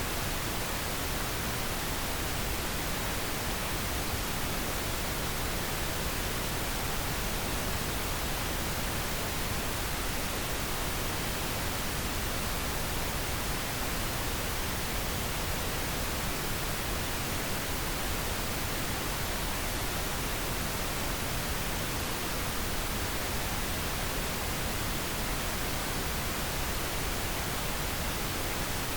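Steady pink noise: an even, unchanging hiss with no breaks or events, used as a sleep aid for babies.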